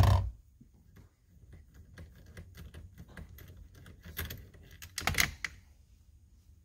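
Socket wrench ratchet clicking in a rapid run of light clicks as the 19 mm steering-wheel nut is spun off the steering shaft. A thump at the start and a couple of metal knocks from the tool and socket.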